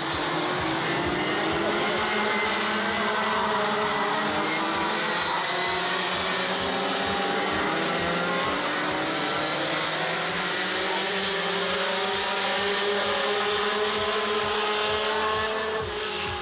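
Several racing karts' two-stroke engines running at once, their pitches rising and falling and overlapping as they lap the circuit.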